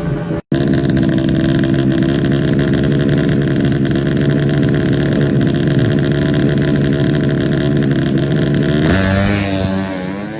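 Tuned 130cc four-stroke underbone drag bike engine held at high, steady revs, with the sound cutting out for an instant about half a second in. Near the end the pitch falls away as the revs drop.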